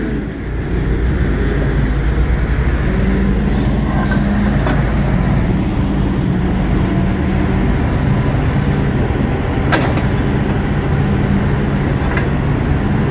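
Diesel engine of a Bobcat telehandler running steadily at low revs, a constant low hum. A single sharp click sounds about ten seconds in.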